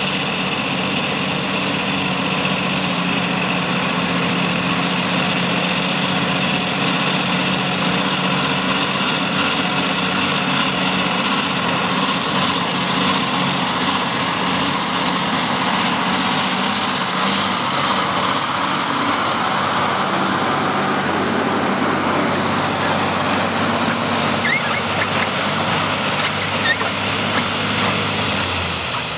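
Diesel engine of a loaded MAN timber truck and trailer running steadily as it drives along a muddy dirt road. Its engine and road noise swell as it passes close by, about halfway through.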